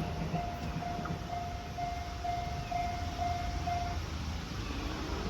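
Japanese level crossing's electronic warning bell ringing, one clear tone struck about twice a second, stopping about four seconds in once the train has cleared the crossing. A steady low rumble lies underneath.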